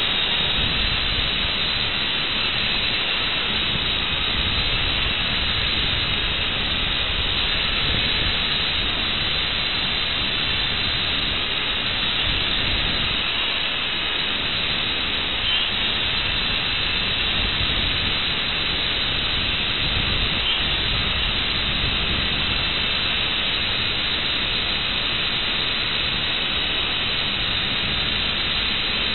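Steady, even hiss with no pitch to it, holding the same level throughout.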